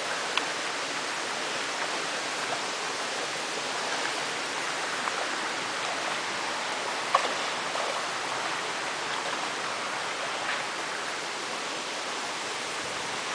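Steady rushing of river water, with a few brief faint clicks and one sharper click about seven seconds in.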